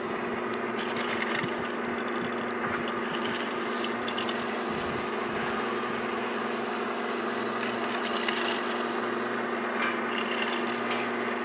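A steady machine hum that holds one pitch throughout, under a rough, even hiss of wind and handling noise on the microphone.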